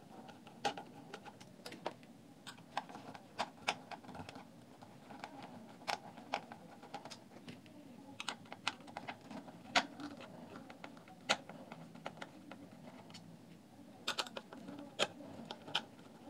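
A small screwdriver unscrewing the tiny screws of a JBL Charge 3 speaker's plastic housing: faint, irregular light clicks and ticks as the tip seats and turns, with a cluster of quicker clicks near the end.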